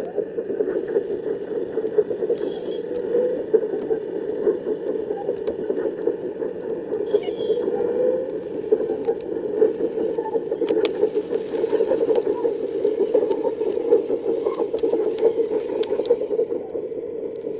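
Scale RC construction machine working: a steady grinding mechanical drone, with scattered clicks and scraping.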